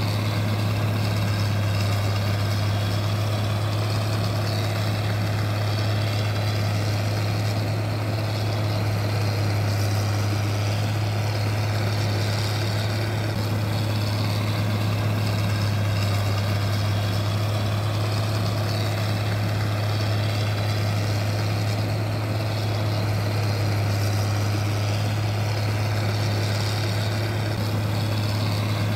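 Steady low mechanical hum at an unchanging pitch, with a wide even hiss over it.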